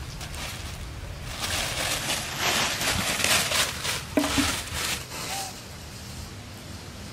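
Rustling and crackling as a long-tailed macaque drags a thin black plastic bag and scrambles up into a leafy tree, louder between about one and five seconds in.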